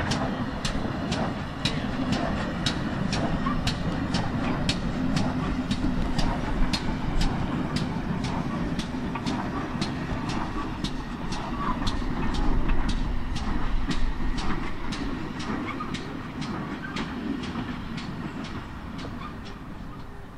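GWR pannier tank steam locomotive and autocoach passing at low speed: a steady rumble of wheels on the rails with a regular clicking, about two a second, that fades near the end.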